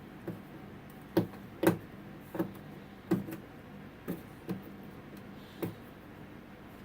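A series of about nine sharp clicks and light knocks at irregular intervals, typical of a plastic appliance being handled, over a faint steady hum.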